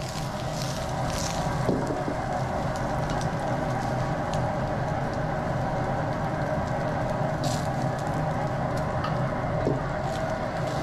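Slices of sticky-rice-stuffed pork intestine sizzling and crackling in hot oil in a wok, over a steady rumble from the gas range.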